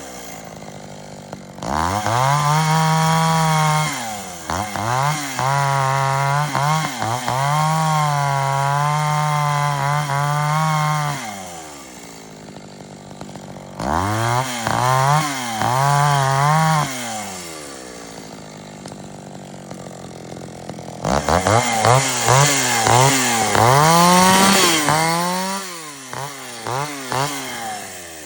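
Echo 550 two-stroke chainsaw run up to full throttle in about four long bursts, each falling back to a low idle; the pitch dips briefly a few times during the longest burst.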